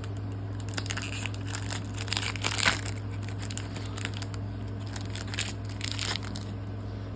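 Foil wrapper of a Pokémon trading card booster pack being torn open and crinkled, the loudest tearing about two and a half seconds in. The crinkling stops about six and a half seconds in.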